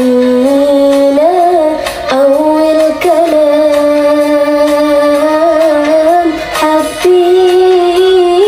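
Background music: a song with a voice singing long held notes over instrumental accompaniment.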